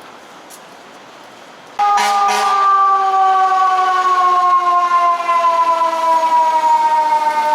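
Fire engine siren that comes in suddenly and loud about two seconds in, then slides slowly down in pitch as one steady wail over low street noise.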